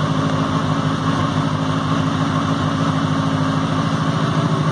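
Benelli TNT 600i's 600 cc inline-four engine idling steadily.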